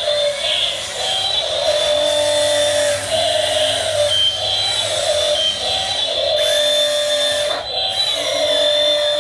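Small electric motors and gearing of a 1/16-scale RC excavator whining as it works, the whine swelling and easing every second or so and sliding up and down in pitch as the motors change speed.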